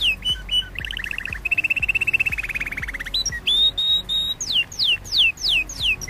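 Domestic canary singing: a run of quick falling whistled notes, then a fast rattling trill about a second in, a few short held notes near the middle, and more falling whistles toward the end.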